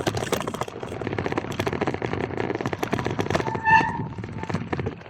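Marin Gestalt X10 gravel bike on 44 mm tyres rolling over a bumpy, loose-stone trail: tyres crunching on the stones and the bike rattling in a dense run of clicks and knocks. A short, high, pitched tone sounds a little under four seconds in.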